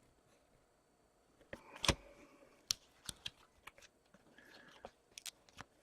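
Trading cards being handled and flipped through on a table: a dozen or so sharp clicks and ticks, the loudest about two seconds in.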